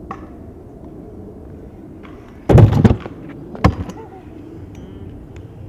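Skateboard wheels rolling on concrete, then a loud clattering impact of the board landing about two and a half seconds in, followed by one more sharp knock about a second later as it rolls on.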